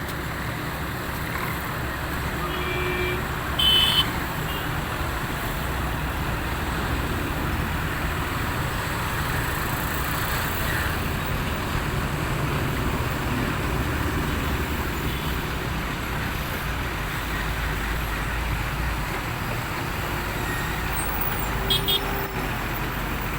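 Steady road traffic noise with vehicle engines running past, and short horn toots about three to four seconds in and again near the end.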